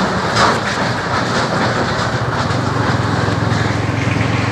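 Motorcycle engine running steadily while riding, a low even hum over a steady rushing noise.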